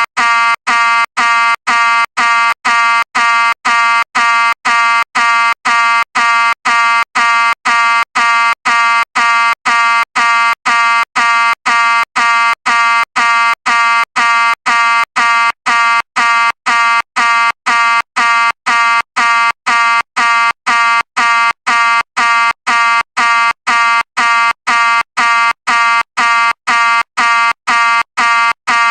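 Fire alarm sounding loudly in a fast, unbroken series of identical short beeps, about two a second.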